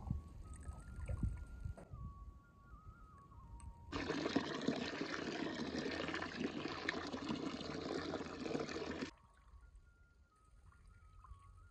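Hands rubbing and swishing soaked split urad dal (maash) in water in an aluminium bowl, a gritty watery sloshing: the dal is being washed. It starts about four seconds in and stops suddenly about five seconds later, with a faint melody underneath.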